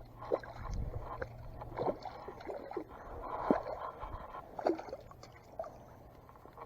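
Faint knocks and rustles of handling in a small fishing boat, with a low steady hum that stops about four seconds in.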